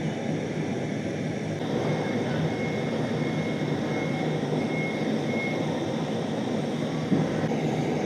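Pot of pineapple peels, ginger and turmeric in water boiling hard on the stove: a steady, even rushing noise.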